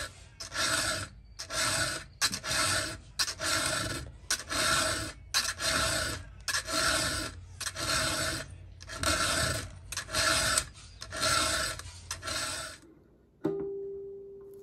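A 7/32-inch round chainsaw file rasping across a chainsaw cutter tooth, a steady run of even push strokes sharpening the tooth by hand. Near the end a single plucked acoustic guitar note rings out and fades.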